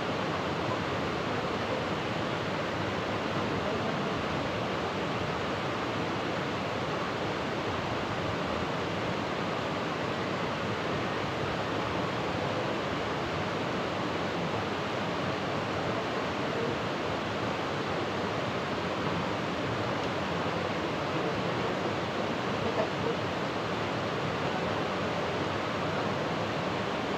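Steady rushing noise of running water, even and unbroken, with one small knock near the end.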